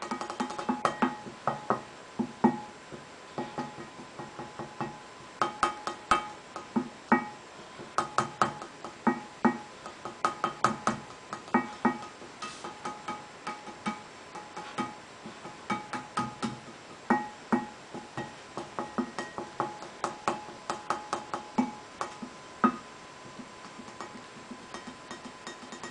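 Instrumental music of short, sharply attacked pitched notes repeating on a few fixed pitches in an irregular rhythm, with clusters of quick notes and brief pauses between them.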